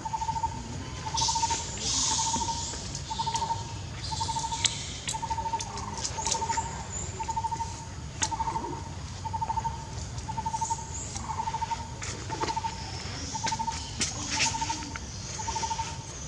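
An animal's short trilled call repeats about once a second. It runs over patches of high, hissy buzzing and a low background rumble.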